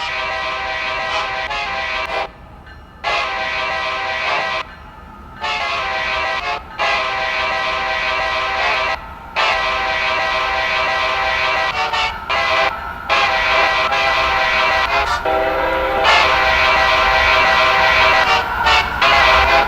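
Amtrak locomotive's multi-chime horn sounded over and over: about eight chord blasts, each one to three seconds long, with short breaks between them, over the low rumble of the train.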